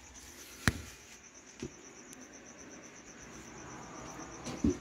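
A cricket chirping steadily and rapidly in the background. A sharp click comes about a second in and a thump near the end, from handling under the truck.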